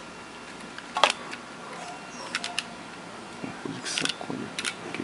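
Plug-in connectors on a WEG CFW500 frequency inverter's circuit board rattling as the opened unit is handled and tipped: a handful of short plastic clicks and knocks, the sharpest about a second in and a small cluster near the end.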